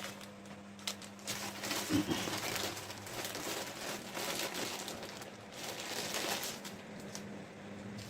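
Plastic packaging crinkling and rustling as it is handled and opened, in an irregular run of short crackles.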